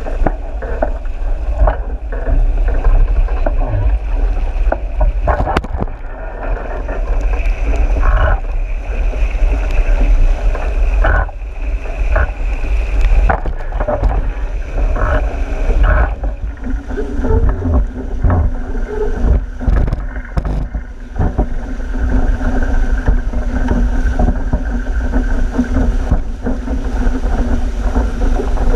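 Wind buffeting a boat-mounted camera's microphone while an RS800 skiff dinghy sails fast through chop, with water rushing past the hull and spray and waves slapping against it in sudden hits. A thin steady whine comes and goes.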